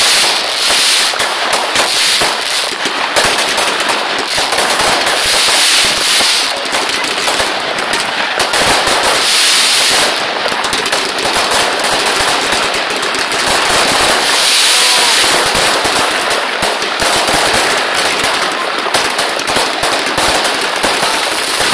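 Fireworks finale: a dense, unbroken barrage of bursting shells and rapid crackling, loud throughout with no pauses.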